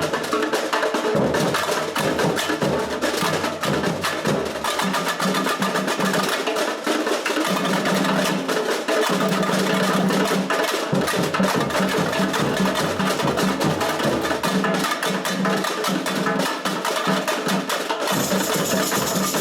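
Samba bateria playing live: a dense, fast rhythm of drums and sharp high percussion over repeated low drum notes, with no singing.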